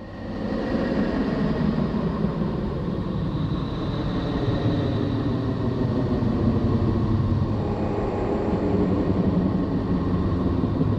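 Space sonification presented as the sound of Neptune: a steady, deep rumbling noise with faint held tones above it.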